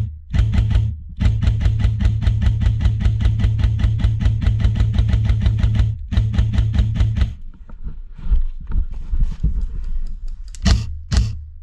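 Airsoft electric rifle firing full-auto: a long, rapid stream of shots with the gearbox motor humming under it, broken by brief pauses, stopping about seven seconds in, then two short bursts near the end.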